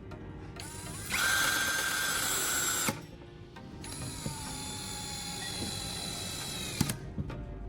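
Electric drill running in two bursts, re-drilling the superglue-and-foil-filled screw hole and driving the hinge screw back in. A short, loud run comes about a second in, then a longer, quieter run whose whine sinks slightly in pitch as it slows.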